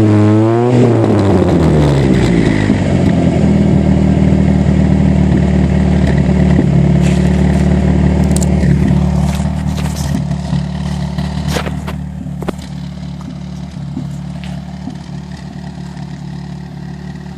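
1989 Honda Prelude 2.0 EX's four-cylinder engine through a custom 2.5-inch cat-back exhaust. A rev falls away about a second in, then the engine settles to a steady, bassy idle. A few sharp clicks come around the middle, and the sound gets quieter a little past halfway.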